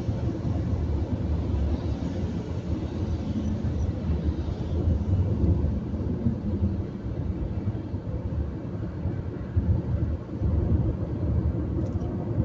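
Steady low rumble of a car driving at highway speed on a wet road, heard from inside the cabin: engine and tyre noise.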